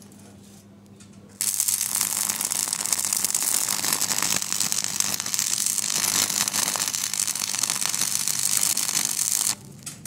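Stick-welding arc crackling steadily as a coated electrode lays a bead joining a steel barrel hinge to a steel door frame. The arc strikes about a second and a half in and breaks off shortly before the end.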